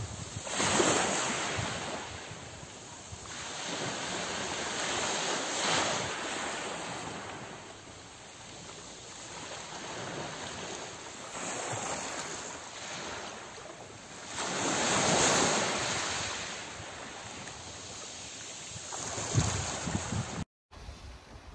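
Small sea waves breaking and washing up a pebble beach, the surf swelling every few seconds. The sound cuts off suddenly near the end.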